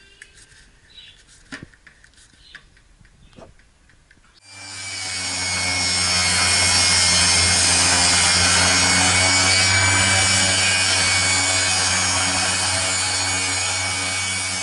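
A few light clicks and knocks as the blade-tilt knob of an Elektra Beckum table saw is set. About four and a half seconds in, the saw is switched on: its motor and blade run up to speed over a couple of seconds and then run steadily and loud, with a low hum under a dense hiss.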